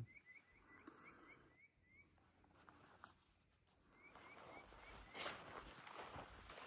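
Faint night insects, likely crickets: a steady high buzz with a short upward chirp repeating about three times a second.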